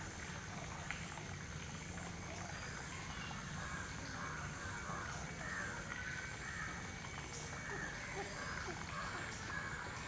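Outdoor ambience: steady background noise with faint, repeated calls of birds, most of them in the second half.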